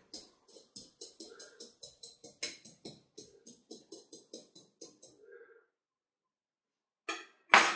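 A rapid, even run of light gritty clicks, about five a second, as fingers work in the granular bonsai substrate around the small trees. It stops after about five seconds. Near the end there is a short, sharp intake of breath, the loudest sound here.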